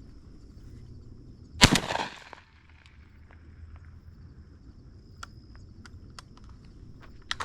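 A single shotgun shot about one and a half seconds in, dying away with a short echo. Later come a few light clicks, over a faint steady high whine.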